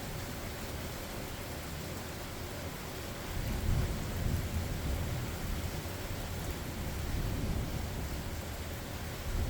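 Steady rain falling, with low rolling thunder rumbling through it that swells about three to five seconds in and again near the end.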